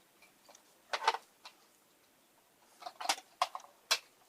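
Handling noise from a plastic G scale model passenger car and its wiring: a sharp knock about a second in, then three more clicks and knocks in quick succession near the end.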